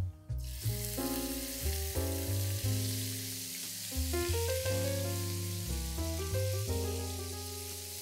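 Chopped onion sizzling in hot oil in a frying pan, starting suddenly just after it is tipped in and going on steadily. Background piano music plays throughout.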